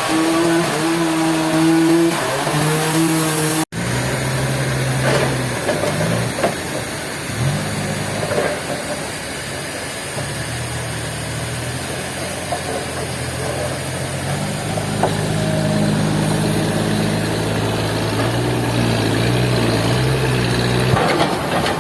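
An engine running, its pitch wavering in the first few seconds, then cut off abruptly about four seconds in and picking up again steadier and lower, with small shifts in speed later on.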